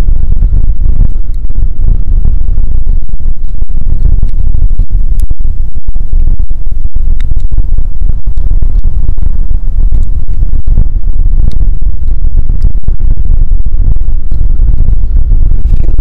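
Heavy wind buffeting the microphone: a loud, gusting low rumble, with a few faint scattered ticks over it.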